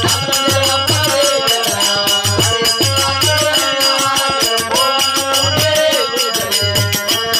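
Harmonium playing a folk melody over a steady drum beat and a shaken rattle, with a man singing along.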